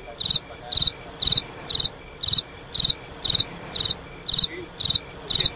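Cricket chirping steadily and loudly, about two chirps a second, each chirp a short rapid trill of pulses.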